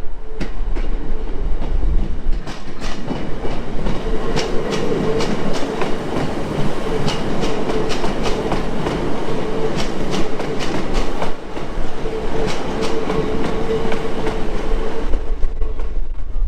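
Train running on rails, its wheels clicking irregularly over rail joints above a continuous rumble, with a steady tone held through most of it.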